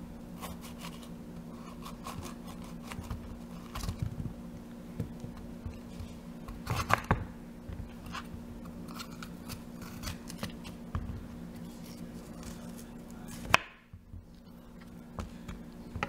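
Cleaver knife cutting through a green bell pepper on a bamboo cutting board: scattered crisp cuts and knocks of the blade on the wood, with a sharp knock about thirteen and a half seconds in.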